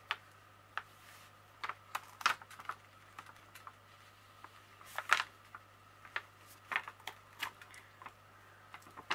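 Irregular short clicks and crackles of a plastic cover sheet being pressed and smoothed by hand onto the sticky adhesive of a diamond painting canvas, with a faint steady low hum underneath.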